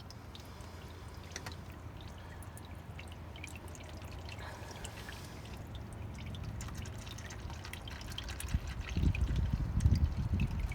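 Used engine oil pouring out of the open drain plug hole of a 2013 Chevrolet Silverado into a drain pan, a steady trickle with a few small ticks. Near the end louder low rumbling comes in over it.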